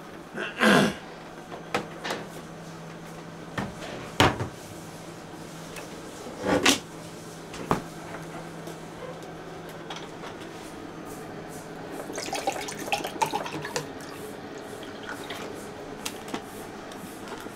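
Kitchen handling sounds: a refrigerator door opening, several knocks and clinks of bottles set down, then tea poured from a large plastic bottle into a glass about twelve seconds in.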